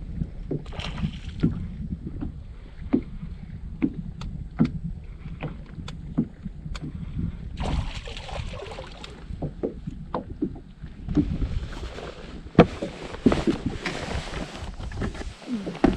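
Knocks and clicks on a fishing boat over a low wind rumble on the microphone, with stretches of hissing noise from about halfway, while an angler fights a hooked smallmouth bass.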